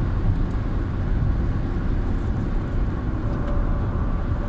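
Steady low rumble of a car cruising at motorway speed, heard inside the cabin: tyre and engine noise.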